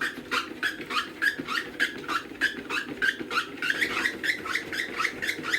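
Dog treadmill running with a steady motor hum, and a dog's paws and claws ticking on the moving belt in an even rhythm of about four steps a second.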